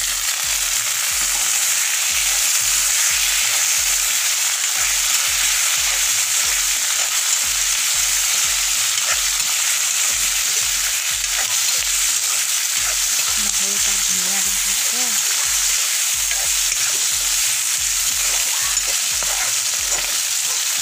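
Raw chicken pieces, just added, sizzling steadily in hot oil in a karahi while a steel ladle stirs them.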